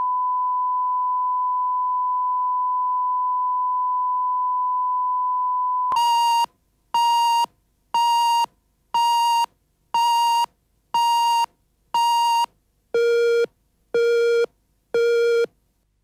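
Broadcast tape leader: a steady line-up test tone over colour bars, then about six seconds in a countdown of beeps once a second, ten in all, the last three lower in pitch.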